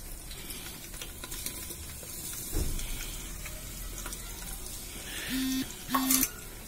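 Smoking-hot mustard oil sizzling steadily in a pot over a wood fire. A dull knock comes about two and a half seconds in, and near the end there are two short flat tones, the second with a sharp clatter.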